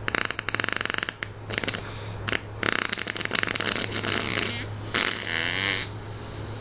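Fart sound effects: a run of fast, sputtering crackles that turns into a longer, wavering, pitched fart near the end, over a steady low hum.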